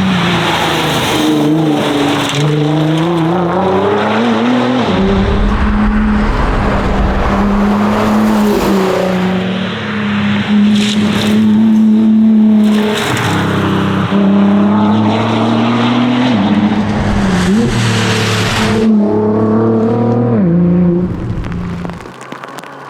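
Nissan R35 GT-R's twin-turbo V6 driven hard, its pitch climbing through the revs and dropping at each gear change, over a rumble of road and tyre noise. The engine note falls away sharply near the end.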